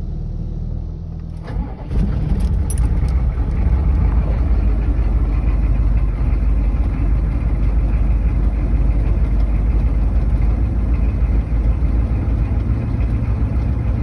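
GM 6.5 L turbo diesel V8 cold-started after its glow plugs cycle: a steady air-compressor hum, then the engine catches about two seconds in and runs rough, chugging. The chugging is the sign of a faulty injection pump holding the injectors open far too long.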